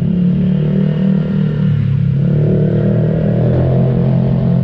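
Honda Click 125i scooter's single-cylinder four-stroke engine running on the move through an Akrapovic carbon exhaust with its silencer insert removed. The note is loud and steady and climbs a little between two and three and a half seconds in.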